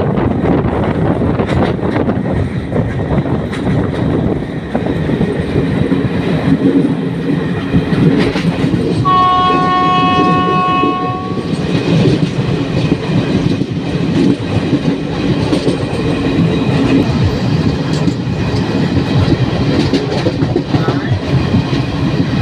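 Moving express passenger train, heard from the side of a coach: the steady rumble and rush of the train running along the track. About nine seconds in, a train horn sounds one steady two-note blast lasting about two and a half seconds.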